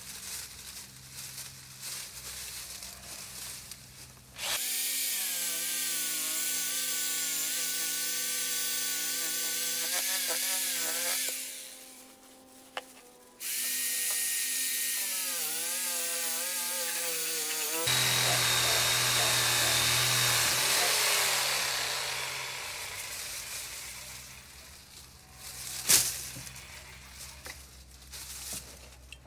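Handheld cordless power tool cutting beech branches: its electric motor whines in two runs of several seconds, the pitch sagging and recovering under load, then a noisier run with a high whine that fades out. A single sharp knock follows near the end.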